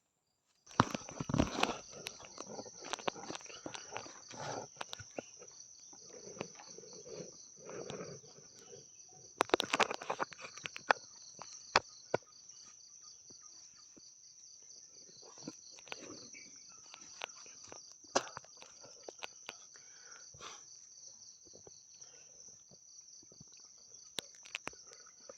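Night insects chirring steadily in a high, finely pulsing chorus, with scattered rustling and sharp clicks and knocks close by.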